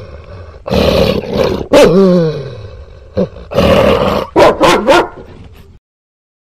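A dog barking and growling in several loud outbursts, cutting off abruptly near the end.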